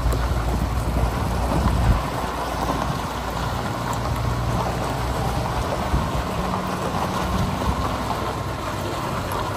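Heavy truck diesel engine idling with a low, steady hum under an even hiss.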